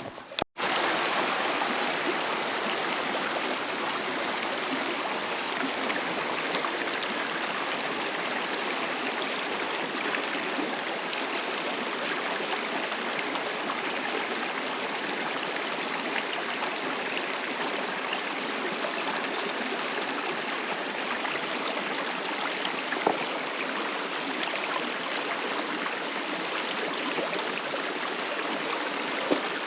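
Shallow, low-running creek water flowing steadily over rocks: a constant rushing babble.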